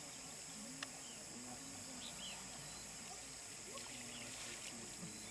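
Steady high-pitched drone of insects, such as crickets, with a few faint bird chirps and a faint murmur of distant voices. A single sharp click comes about a second in.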